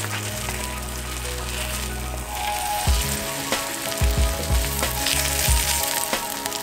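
Egg omelette sizzling as it fries in a stainless steel skillet, a steady hiss throughout. Background music with held chords plays under it, and a drum beat comes in about three seconds in.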